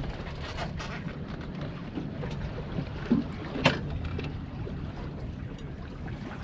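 Wind rumbling on the microphone over open water around a fishing boat, with a sharp knock about three and a half seconds in.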